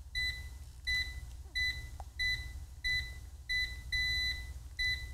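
Ecovacs Deebot robot vacuum beeping: about eight short electronic beeps on one pitch, roughly one every two-thirds of a second, one held a little longer near the end, over a low steady hum.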